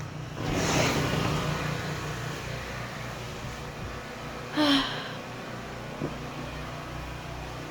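Portable generator engine running steadily with a low hum. A brief rush of noise comes near the start, and a short rising pitched sound about two-thirds of the way through.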